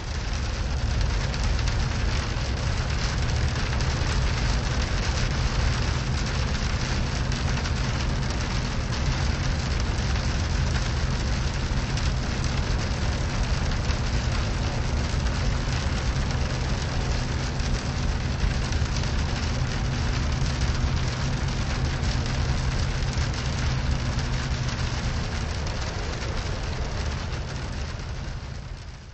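Rain falling on a moving car's windshield and body, heard from inside the cabin over a steady low drone of engine and tyres on the wet road. It fades out near the end.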